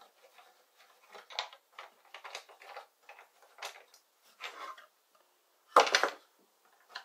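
Plywood jig being handled and shifted on a wooden workbench: a series of light knocks and scrapes, with one louder bump near the end.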